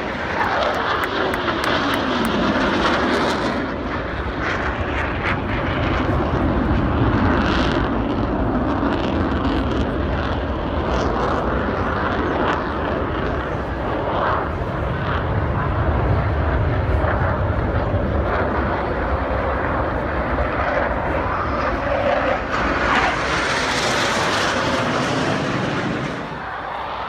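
Twin-engine McDonnell Douglas F/A-18 Hornet jets flying past, a continuous loud jet noise. A tone falls in pitch over the first few seconds as they go by, and the hiss swells again near the end.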